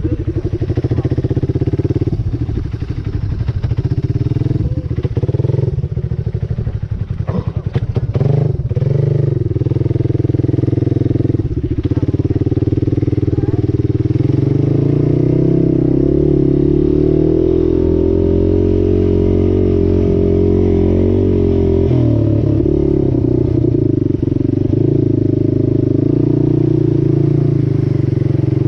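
Quad (ATV) engine running under way, its pitch rising and falling as the throttle is worked, with knocks and rattles through the first dozen seconds and a steadier stretch of even running in the middle.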